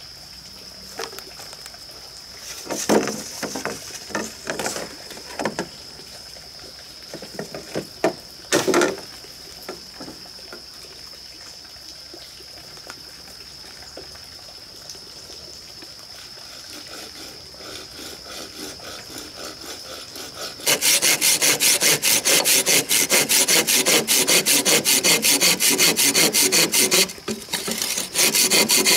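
Hand saw cutting through a thick green bamboo pole in rapid, even back-and-forth strokes, starting about two-thirds of the way in and pausing briefly near the end. Before that, scattered knocks and rustles of bamboo being stepped on and handled, over a steady high-pitched tone.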